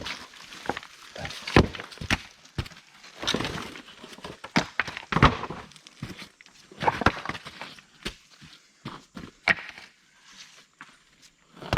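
Rocks knocking and clacking as they are dropped and set in place one after another, with footsteps scuffing on rocky ground.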